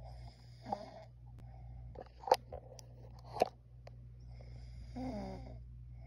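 A person snoring in sleep with the mouth open: rough, rattling snores at intervals, with two sharp clicks in the middle, and a longer snore with a wavering pitch about five seconds in. A steady low hum runs underneath.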